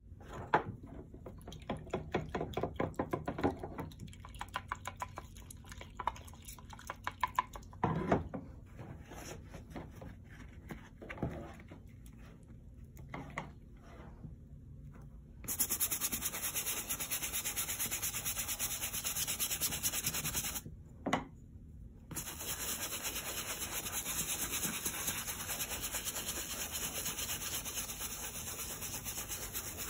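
Small bristle brush scrubbing wet suede with suede shampoo. Brief, uneven strokes come first, then about halfway through it settles into fast, steady scrubbing, with one short pause.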